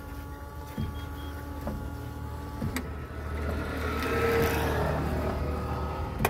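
Turbocharged Sonalika DI 750 tractor's diesel engine running steadily, heard from the cab, while the windscreen wiper sweeps across the glass. A rushing hiss swells and fades in the middle, and there are a couple of sharp clicks.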